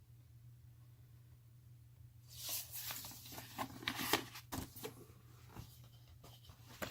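Paper and cardboard rustling with light clicks and knocks as a vinyl LP and its sleeves are handled, starting a couple of seconds in, over a steady low hum.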